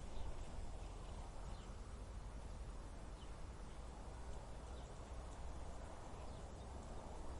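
Desert wind blowing steadily: an even rushing noise with a deep rumble underneath. A few faint, short, high chirps are scattered through it.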